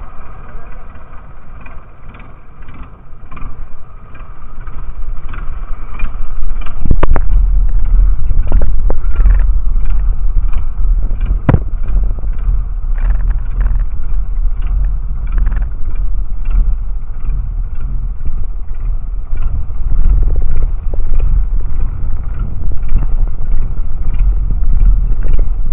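Fishing boat's engine running, with regular sharp knocks about twice a second. About seven seconds in, a much louder low rumble of engine, water and wind takes over, with a couple of stronger knocks.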